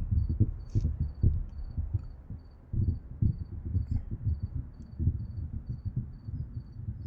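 Crickets chirping in a steady, high-pitched rhythm, about three chirps a second, over a louder, irregular low rumble.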